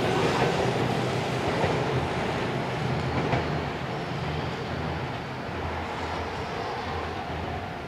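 Meitetsu electric train moving away along the track, its wheel and running noise fading steadily as it recedes.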